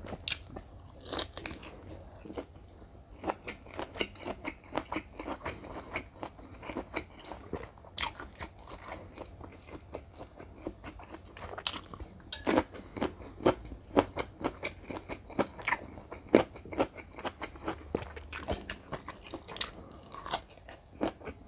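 Close-miked eating sounds: wet chewing of river prawn meat mixed with crisp crunching bites. It comes as a run of short sharp clicks and smacks, denser and louder in the second half.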